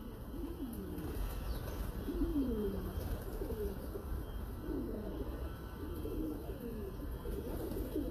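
Several caged domestic pigeons cooing, their low coos overlapping one another.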